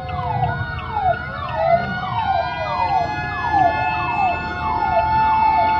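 Several fire truck sirens sounding at once over low engine rumble, heard from inside a car. One repeats a quick falling sweep about twice a second, while others hold long, slowly rising wails.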